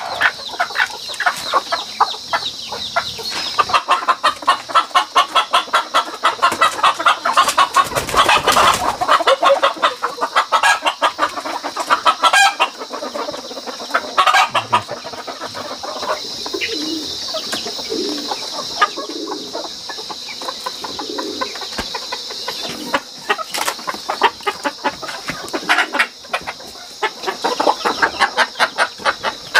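Wild chickens clucking and squawking in fast runs of short calls while they are caught and handled, with lower single clucks in the middle stretch.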